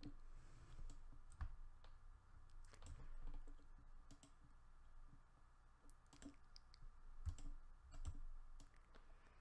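Faint, irregular clicks of a computer mouse and keyboard as on-screen objects are selected and dragged.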